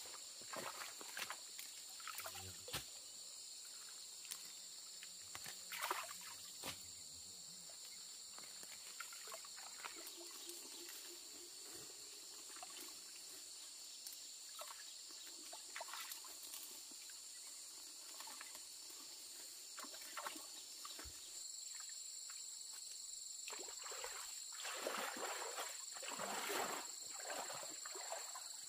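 Steady high-pitched insect chirring, with scattered light knocks and rustles that get louder near the end.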